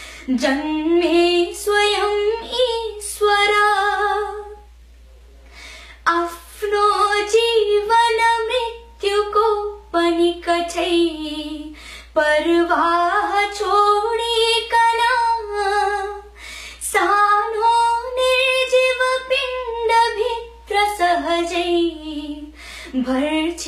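A young woman singing a Nepali poem unaccompanied, in sustained melodic phrases with short breaths between them and a longer pause about five seconds in.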